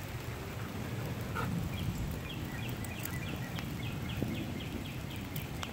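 Steady rain in woodland with a low rumble, and a songbird singing a run of short, falling notes, about four a second, from about two seconds in.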